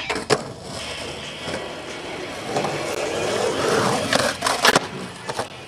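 Skateboard on concrete: a sharp clack as the board goes down, wheels rolling, then the trucks grinding along a concrete ledge in a 5-0 and two sharp clacks near the end as the board comes off and lands.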